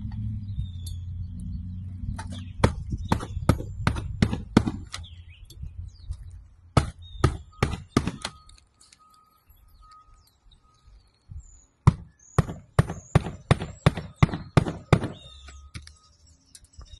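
Hammer blows in quick runs of several strikes, about two to three a second, in three spells with pauses between; birds chirp faintly in the gaps.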